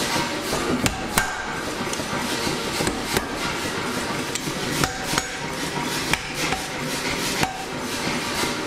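Hammer blows on a hot titanium bar during forging: sharp metal-on-metal strikes at irregular intervals, roughly one a second, some leaving a short ring, over a steady background noise.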